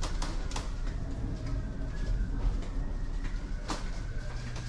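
Steady low rumble and hum inside a cruise ship under way at sea, broken by a few sharp clicks, the loudest about three and a half seconds in.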